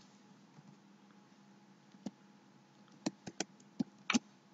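Computer keyboard keystrokes: a single key press about two seconds in, then five more in quick succession near the end.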